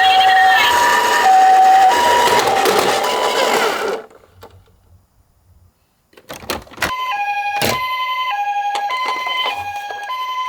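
Toy ambulance's electronic two-tone hi-lo siren, alternating high and low notes about every two-thirds of a second over a rough rustling noise. It cuts off about four seconds in. After a short quiet, a few sharp clicks come, and the siren starts again and keeps going.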